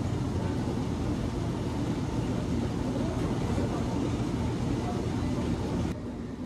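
Steady low rumble of gym cardio machines running, with no distinct rhythm. It drops to a quieter sound about six seconds in.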